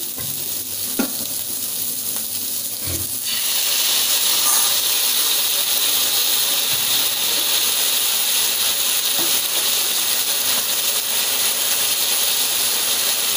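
Onion and capsicum frying in hot oil in a kadai: a steady sizzle that grows louder and brighter about three seconds in, with a couple of light knocks before it.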